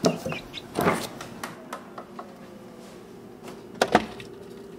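Several soft knocks and rustles, then the steady hum of an open refrigerator. Near the end come two sharp clicks as a plastic bowl is taken off a fridge shelf.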